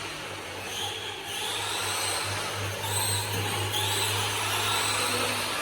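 Electric RC car motors whining, rising and falling in pitch as the cars speed up and slow down, over a steady low hum.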